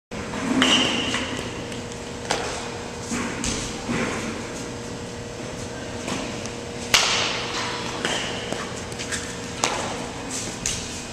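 Baseball fielding practice: a string of sharp knocks and pops from the ball, the loudest about seven seconds in, a couple carrying a short high ping. They echo in a large hall with metal walls, over a steady low hum.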